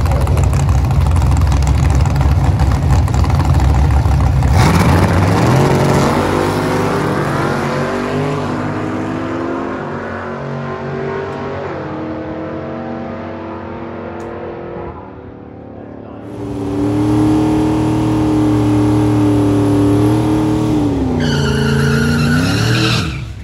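Two drag-race cars rumbling loudly on the starting line, then launching about four and a half seconds in, their engines revving up through gear shifts and fading away down the strip. After a cut, a fourth-generation Camaro's engine is held at steady high revs during a burnout, with the pitch dipping and rising again near the end.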